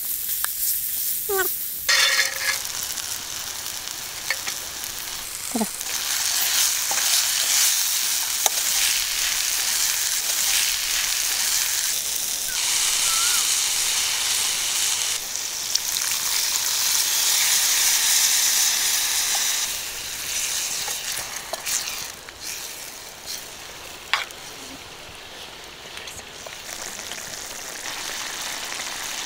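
Dried fish curry sizzling and frying in an iron wok over a wood fire, with a steel spoon clicking and scraping against the pan as it is stirred. The sizzle is loudest through the middle and drops to a quieter bubbling in the last third.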